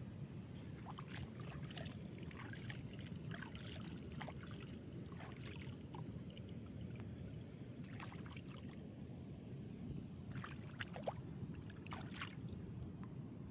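Sea water lapping and trickling at the shoreline: small splashes and crackles scattered over a steady low rumble.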